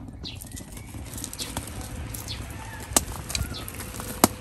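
Long metal raku tongs knocking and clinking as a red-hot glazed bowl is lifted out of the kiln and set down into a metal tub of sawdust. There are two sharp clinks, about three seconds in and again just after four seconds in, the second the louder, with small birds chirping throughout.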